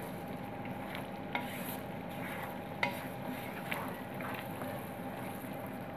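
Masala paste of onion, ginger, garlic and ground spices sizzling in oil in a non-stick pan, stirred and scraped with a wooden spatula, with a few sharp ticks along the way. This is the frying stage that cooks off the raw smell of the spices before water is added.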